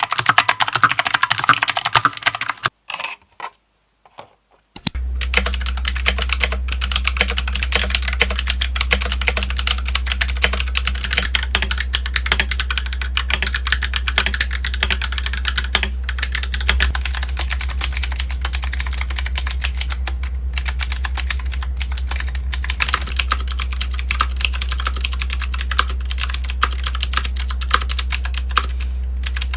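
Rapid typing on a computer keyboard, a dense run of key clicks. It breaks off briefly about three seconds in, then resumes over a steady low hum.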